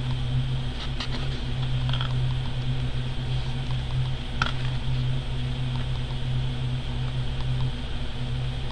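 Thick paper art prints being handled and shuffled in a box, giving a few faint rustles and taps over a steady low hum.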